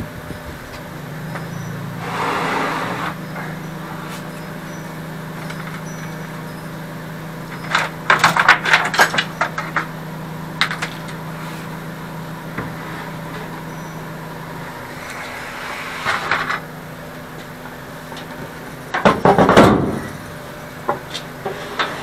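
Knocking, clattering and scraping of a heavy pressboard cabinet top section being worked loose and lifted off its base, in two bursts about eight and nineteen seconds in, the second the loudest. A steady low hum runs underneath for most of the first fifteen seconds.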